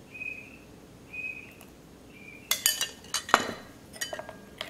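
Metal tablespoon clinking against a glass bowl several times in the second half, with ringing after the sharpest strikes, as lime juice is spooned into the dressing. A few short high squeaks come before the clinks.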